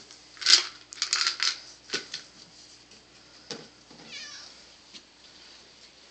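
Domestic cat making a few short calls, among scattered clicks and taps; the loudest sound is a brief burst about half a second in.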